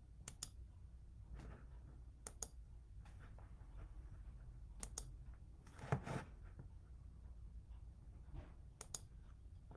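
Sharp computer clicks, mostly in quick pairs every two to four seconds, over a low room hum, with one brief muffled thump about six seconds in.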